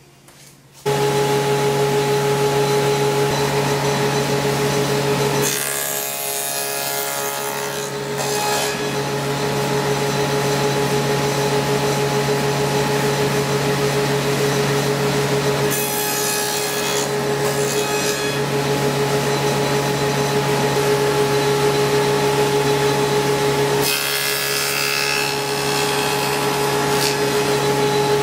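Table saw running with a steady motor hum that starts about a second in. Three times the blade cuts through a wooden board fed on a miter gauge, and each cut is a louder, noisier rush of two to three seconds.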